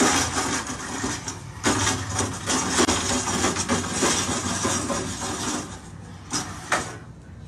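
Metal legs of a small school chair scraping and rattling across a hard floor as a dog walks along with the chair stuck over its body. The scraping comes in uneven stretches, eases off after about five and a half seconds, and ends with two short scrapes.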